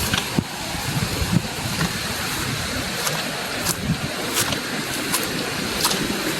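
Steady rush of running water, with a few brief high ticks through it.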